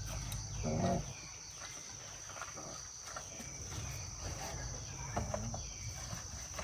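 Steady high-pitched insect chorus, crickets, with a few short animal sounds.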